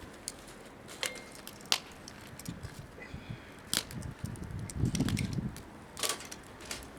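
Wood campfire crackling, with a few scattered sharp pops and a short low rumble about five seconds in.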